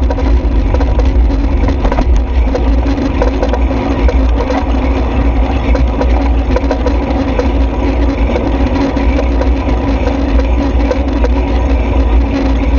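Ride noise on a bicycle-mounted camera: wind buffeting the microphone as a heavy, steady rumble, with a constant patter of small rattles and clicks from the mount shaking over the paved cycle path.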